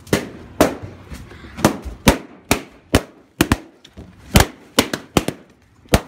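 Latex party balloons bursting one after another, about two sharp pops a second, as they are stomped on and squeezed.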